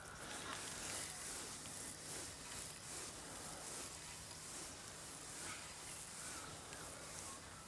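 Faint outdoor ambience with a few brief, faint bird chirps in the second half.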